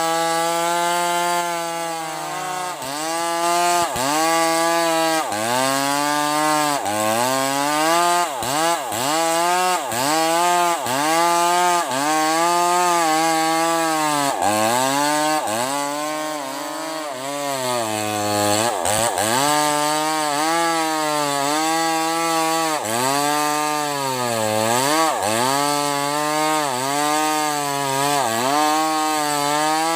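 Bosco 5880 two-stroke chainsaw cutting sengon wood at high revs. Its engine pitch dips and recovers every second or so as the chain bites into the cut under load.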